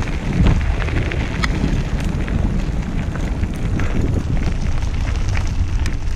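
Recumbent trike tyres rolling over a dirt and gravel trail, a steady gritty crunch with scattered small pops and clicks from stones, over a low rumble of wind and vibration on the camera microphone.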